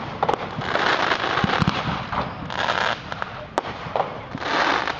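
Aerial fireworks going off: sharp bangs of shells bursting, the loudest one about a third of a second in and another about three and a half seconds in, with spells of dense crackling from crackle stars between them.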